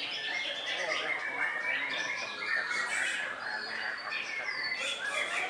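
Several white-rumped shamas (murai batu) singing at once, a dense tangle of overlapping whistled and chattering song phrases, with a few clear high whistles about four seconds in.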